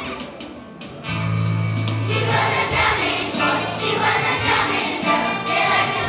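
Children's choir singing a song with instrumental accompaniment. The music dips briefly at the start and a new phrase comes in with low held notes about a second in.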